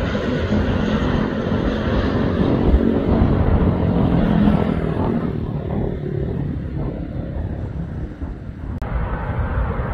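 Four-engine turboprop of a C-130 Hercules-type transport droning steadily with a propeller hum, fading away over about the first half. Near the end a sudden cut brings in a different steady outdoor background.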